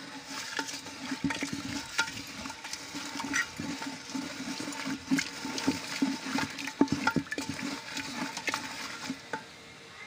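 A wooden stick stirring jaggery dissolving in water in an aluminium pot: liquid sloshing, with irregular knocks and scrapes as the stick hits the pot's sides and bottom. The syrup is kept moving so it does not stick and burn on the bottom.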